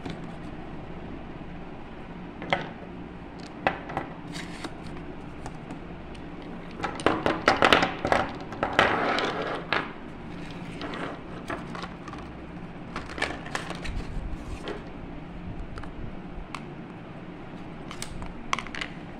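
Small plastic paint jars clicking and knocking against each other and the tabletop as they are taken out of a cardboard box and arranged, with a busy run of clatter about seven seconds in and scattered single knocks after it.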